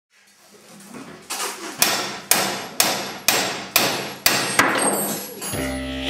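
Sharp, evenly spaced percussive strikes, about two a second, over a wash of sound that swells up from silence; near the end a low droning tone with a pulsing rhythm takes over as music.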